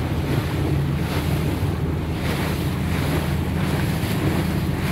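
Boat engine running steadily as a low drone while under way, with water rushing past the hull and wind buffeting the microphone.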